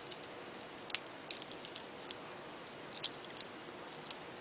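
Faint, irregular small clicks and taps over a low steady hiss, typical of a hard plastic toy being handled close to the microphone.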